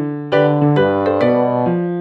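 Background music: a gentle piano or electric-piano tune, with chords struck in a steady rhythm and a short run of changing notes in the middle.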